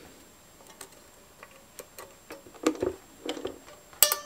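Scattered small clicks and taps of a hand tool against the metal claw mechanism and spring of a Bolex M8 8mm film projector as the spring is worked off. The sharpest click comes near the end.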